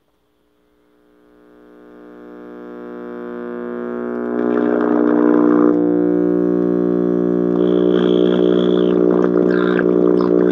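Zenith K510GA AM tube radio warming up after switch-on: a loud, steady hum swells in over the first few seconds as the tubes heat. The hum is the sign of a failing multi-section filter capacitor. In the second half, fainter station sound comes through above the hum.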